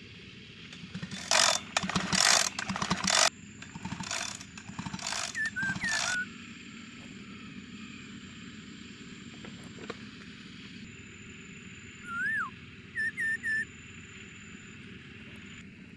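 A few harsh scraping or rasping noises in the first half, like hand work on metal, then a handful of short chirping bird calls that rise and fall in pitch.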